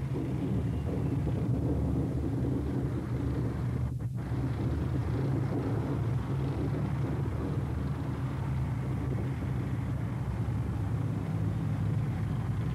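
Engines of tracked Scimitar and Scorpion armoured reconnaissance vehicles running steadily at idle, a continuous low rumble.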